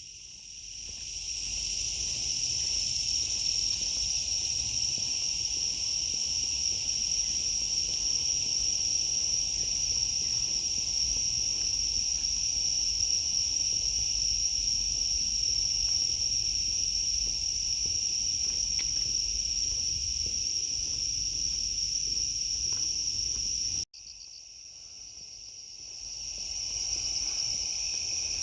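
Night insects trilling: one continuous, steady high-pitched trill, with fainter regular pulsing calls above it. About 24 seconds in the sound cuts off abruptly, then comes back quieter and swells up again.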